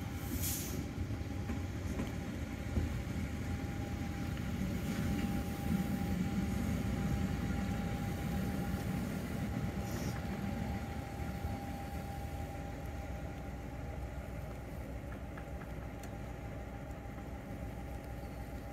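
Diesel railcar of a 750 mm narrow-gauge line running as it drives slowly past, a low engine rumble that swells in the middle and eases toward the end, over a steady hum. A brief hiss sounds about half a second in.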